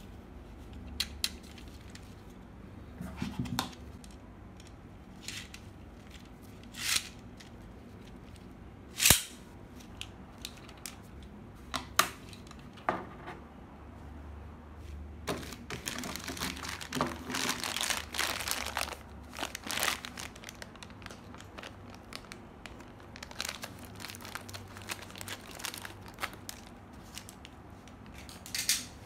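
Hard plastic toy parts being handled, giving a scatter of sharp clicks and knocks in the first half. From about halfway on, clear plastic bags holding Beyblade tops crinkle as they are picked up and handled.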